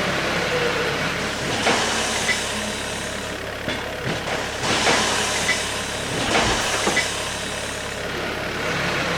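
Tyre handler's engine running steadily, with several short hisses and sharp clanks as it works.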